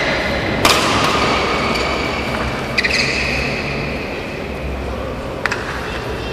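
Badminton rally: a racket strikes the shuttlecock three times, sharp cracks about two seconds apart, over the steady noise of a large sports hall.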